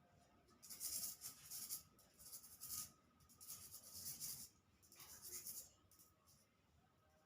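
Soft scratching and rustling in four bursts of about a second each, with a few short scrapes between them.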